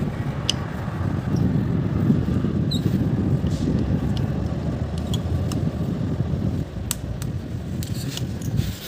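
A steady low rumble, with a few small sharp clicks scattered through it as a hex key works the screws of an aluminium transom window's hinge fitting.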